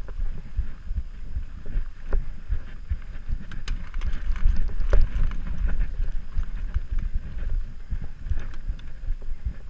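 Mountain bike running down a dirt forest trail: a steady rumble of tyres and suspension over roots and ruts, with frequent sharp clicks and clatters from the bike over bumps and wind buffeting the camera microphone.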